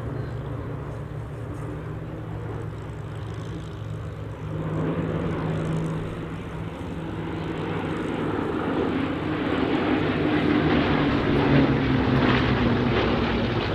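Piston-engined Second World War warbird flying a display, its propeller engine growing louder through the second half as it approaches, with the engine note dropping slightly near the end as it passes.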